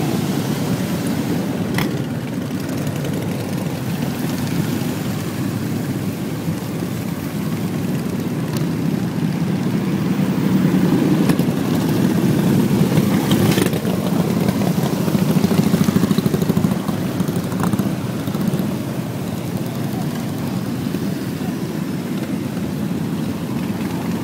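Steady low road rumble, like traffic or riding along a road, with a couple of faint clicks.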